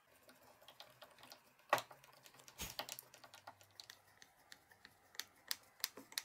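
Irregular light clicks and taps of small steel ball bearings, nylon dowels and a flat screwdriver being handled and pushed into place, the sharpest click a little under two seconds in.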